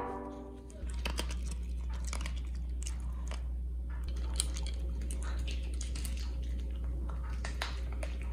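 A small dog chewing and crunching food, with many short irregular crunches and clicks over a steady low hum.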